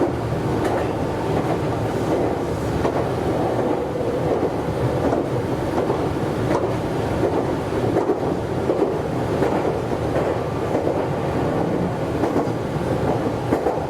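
Meitetsu 100 series electric train running steadily along the track: a continuous rumble of wheels on rail, with a few faint clicks from rail joints.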